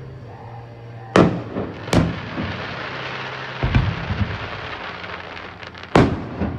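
Aerial fireworks going off: sharp bangs about a second in, again at two seconds, a smaller one near four seconds and another about six seconds in, with a hiss between them.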